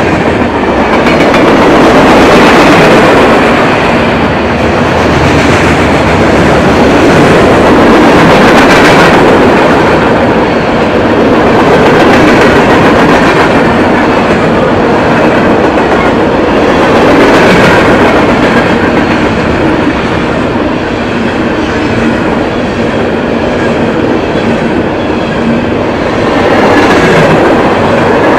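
Freight cars of a long mixed freight train (tank cars, boxcars and covered hoppers) rolling past close by at about 46 mph: the loud, steady rumble and rattle of steel wheels on rail, swelling and easing gently every few seconds.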